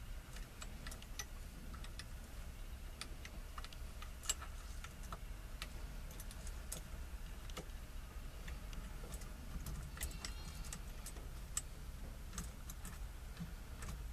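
Irregular light metallic clicks and ticks from a steering wheel puller's screws and washers being handled and set into the steering wheel hub. A low steady hum runs underneath.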